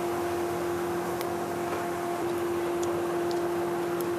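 Steady hum and hiss of a frying kitchen, with a few faint crisp ticks as a freshly fried sanzi dough twist is chewed.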